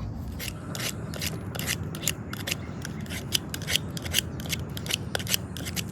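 Utility knife blade carving coarse shavings from a 2x6 board, a quick series of short, crisp cutting strokes, several a second.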